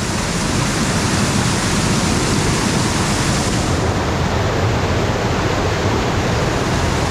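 Loud, steady rushing of water from a monsoon-swollen stream or waterfall, an even roar with no breaks; the hiss grows a little duller about four seconds in.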